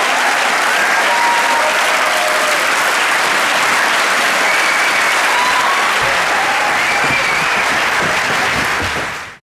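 Large theatre audience applauding, dense steady clapping with a few voices calling out over it, fading out just before the end.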